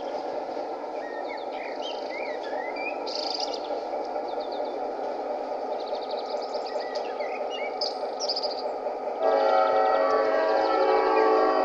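Zimo sound decoder playing an EMD 16-567 diesel engine sound through the small speaker of a G-scale F3A model locomotive. The engine sound runs steadily and lacks any deep bass. About nine seconds in, a loud, long air-horn blast starts over it.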